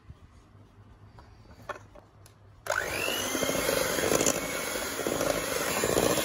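Borosil electric hand mixer switched on about two-thirds of the way in, its motor whining up in pitch and then running steadily as the beaters cream butter and powdered sugar in a steel bowl. Before it starts, a few faint knocks.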